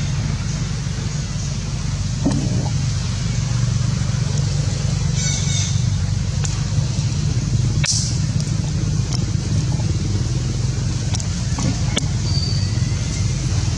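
Steady low rumble with a few faint, scattered clicks.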